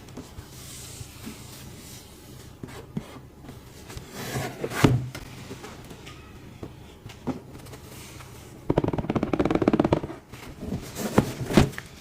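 Packaging of a boxed figure being handled and opened: scattered knocks and clicks, with about a second and a half of dense crackling rustle a little after the middle.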